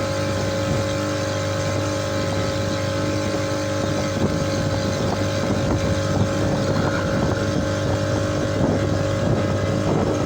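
Boat engine running steadily, with a constant whine over its drone.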